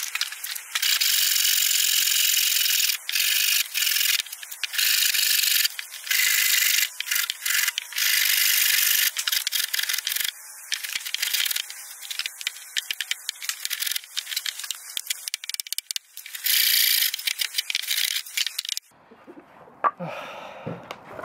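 Hand saw cutting through a length of softwood timber. The sped-up strokes run together into a near-continuous rasp with brief breaks, and the saw is very blunt. The sawing stops near the end.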